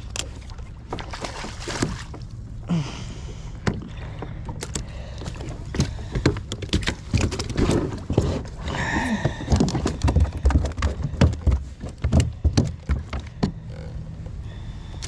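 Knocks, clicks and thumps on a kayak and fishing tackle while a hooked bass is fought and brought in, getting busier and louder in the second half, with a short rush of noise about nine seconds in.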